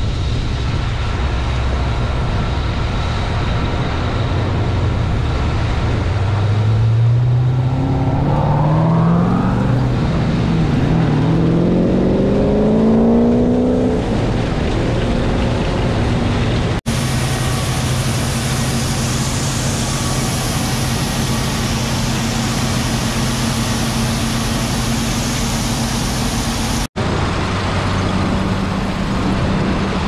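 John Deere combine harvester engines running under load while harvesting, a steady machine hum under a noisy rush; in the first part the engine pitch climbs gradually. The sound breaks off and changes abruptly twice.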